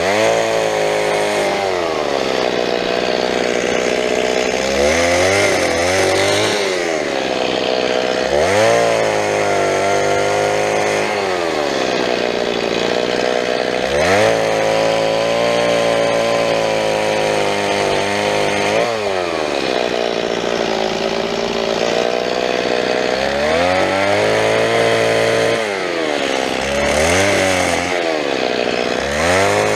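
Two-stroke chainsaw running at high revs while cutting through fallen branches. Its engine pitch drops and climbs back up again every few seconds as it takes each cut and is throttled off and on.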